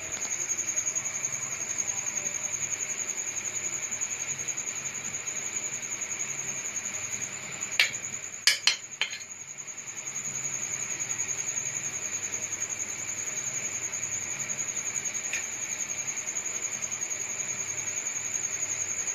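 A steady high-pitched whine with a low hum beneath it, and a quick cluster of three or four sharp taps about eight seconds in.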